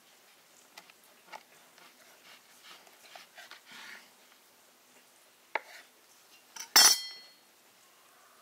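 Kitchen knife cutting through a rolled strip of dough on a wooden board, with soft scrapes and light taps. About seven seconds in, the knife is set down with one sharp metallic clink that rings briefly.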